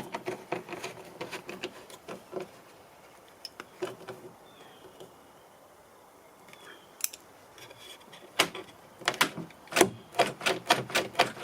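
Ratchet clicking as the 8 mm bolt is driven back into the car's inside door handle: scattered clicks at first, a quiet spell, then a quicker run of sharp clicks near the end.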